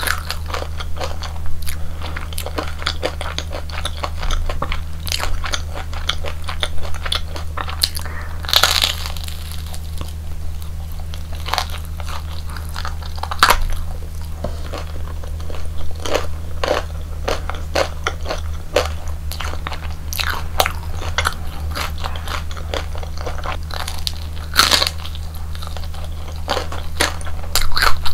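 Close-miked crunchy biting and chewing of a crispy batter-fried Korean hotdog: a few loud bites spread through, with steady crackly chewing between them, over a low steady hum.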